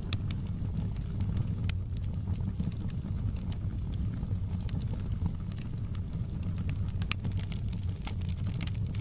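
Wood fire burning, with a steady low rumble under scattered sharp crackles and pops; a louder pop comes about two seconds in and a cluster of crackles near the end.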